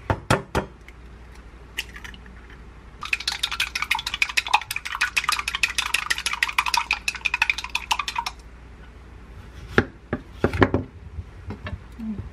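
Wooden chopsticks beating an egg in a glass mug: a fast, even run of light clinks against the glass, about a dozen a second, lasting about five seconds. A few sharp knocks come just before it, and a couple of heavier thuds come near the end.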